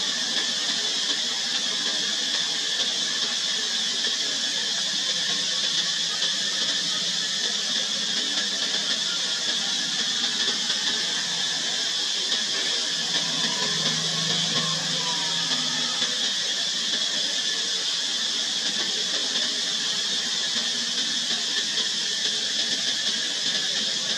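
Steady high-pitched insect chorus, an unbroken shrill drone that keeps an even level.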